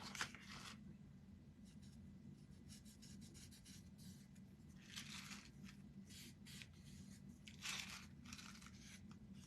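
Near silence broken by a few faint scratching and rubbing sounds from small wooden craft pieces being handled and worked at their edges.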